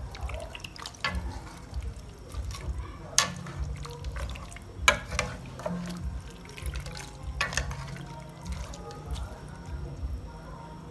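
Water splashing and pouring, with a few sharp knocks of utensils or dishes, over background music.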